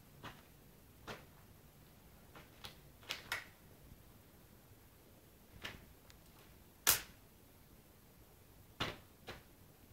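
Irregular sharp snaps and clicks of a deflated rubber balloon as a cat bites and tugs at it, about ten in all, the loudest about two-thirds of the way through.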